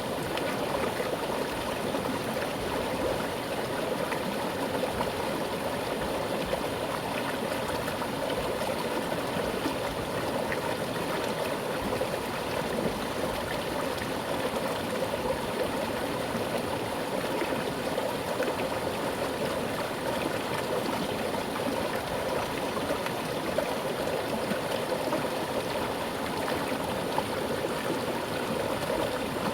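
Mountain river flowing with a strong current: a steady rushing and gurgling of water over rocks, with no change throughout.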